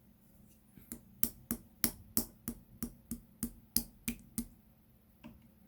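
Translucent slime being worked by hand, giving a steady run of about a dozen sharp clicking pops, about three a second, then one fainter pop near the end.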